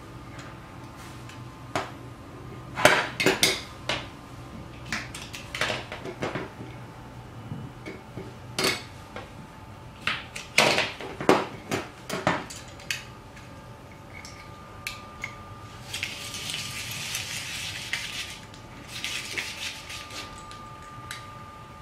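Knife chopping cucumber on a wooden tabletop and a stainless steel rotary grater being handled: clusters of sharp knocks and metallic clatter. About 16 seconds in comes a few seconds of rasping as vegetable is ground through the grater's rotary drum.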